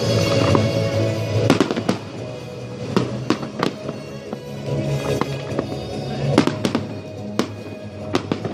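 Fireworks going off in many sharp bangs at irregular intervals, over music playing throughout.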